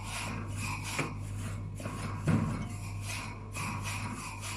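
Feather duster brushing over the wire rack at the back of a fridge freezer in repeated scratchy strokes, with a light knock about a second in and a heavier one a little after two seconds. A low steady hum runs beneath.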